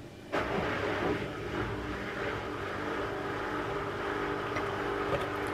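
A household appliance running with a steady mechanical hum and a few constant tones, starting abruptly just after the beginning.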